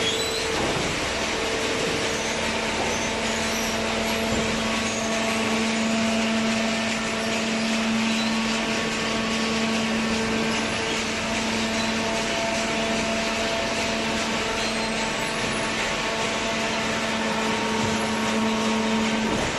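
Horizontal hydraulic cardboard baler running: a steady mechanical drone and hiss from its hydraulic pump and motor, with a steady hum that sets in about two seconds in.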